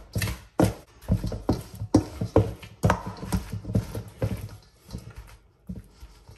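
A spoon knocking and thudding against a mixing bowl, about two to three strokes a second, as a thick cream cheese and spinach stuffing is mixed and pressed into a paste.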